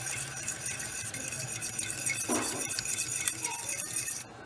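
A metal fork stirring sugar into boiling juice in a stainless steel saucepan, clinking and scraping lightly against the pot, with the liquid bubbling. The stirring dissolves the sugar before the cranberries go in.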